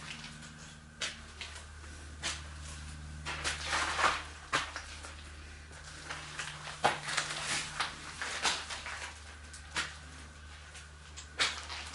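Irregular clicks and scuffs of people moving about in a small stone chamber, with a denser patch of scuffing about three to four seconds in, over a low steady hum.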